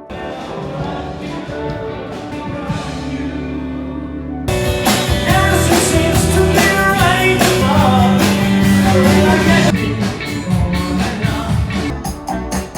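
Background music: a band song with singing, guitar and drums, getting fuller and louder about four and a half seconds in.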